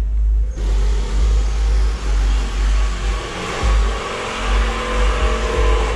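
Car audio system playing music at high volume: heavy, pulsing deep bass, joined about half a second in by a loud, dense wash across the mids and highs.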